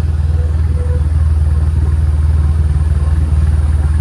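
Motorcycle engine running steadily while riding, a low, even rumble heard from the rider's seat.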